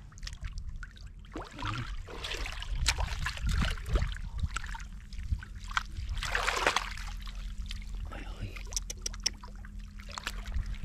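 Wet mud and shallow water squelching and splashing in irregular bursts as hands grope into a crab burrow.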